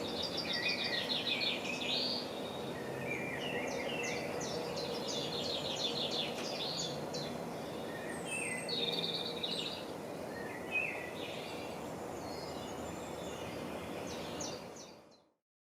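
Small birds singing, with repeated chirps and trills, over a steady outdoor background hiss. The sound fades out near the end.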